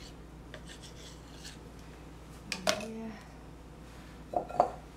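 Kitchen knife cutting through soft bread dough and scraping on the floured countertop, with one sharp knock of the blade on the counter about halfway through and a couple of softer knocks near the end as the dough pieces are handled.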